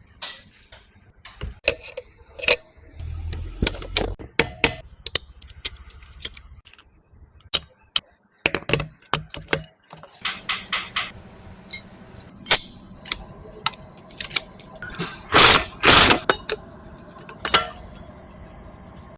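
Metal hand tools clicking and clinking on engine parts during engine assembly, in irregular sharp knocks with some ratchet-like clicking. A steady low hum comes in about halfway, and two louder noisy bursts come near the end.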